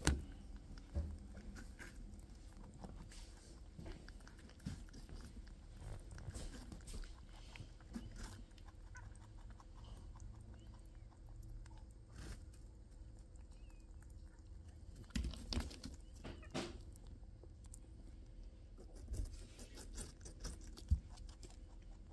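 Rabbit biting and chewing watermelon flesh: faint, quick, moist crunching clicks, with a few louder knocks, the sharpest near the end.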